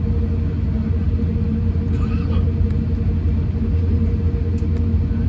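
Steady low rumble inside the passenger cabin of an Airbus A350-1000 on the ground after landing, its engines idling and cabin air running, with a constant low hum and a fainter higher steady tone.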